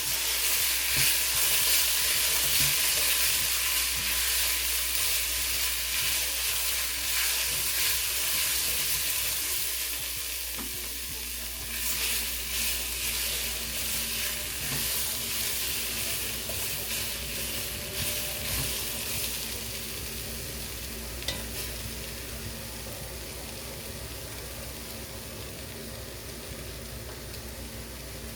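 Food sizzling as it fries in a hot pot, with a few short taps of stirring. The sizzle is loudest at first and slowly dies down over the second half.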